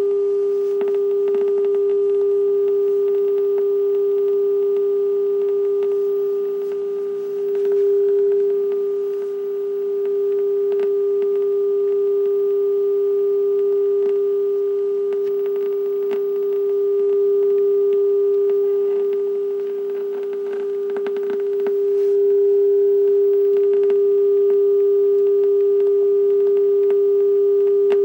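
Steady low-pitched droning tone from a 1986 View-Master Video VHS tape's audio track, heard through a TV speaker: the "low pitch black screen of death" that plays over the black picture at the tape's end. It holds one pitch, swelling and dipping slightly in loudness.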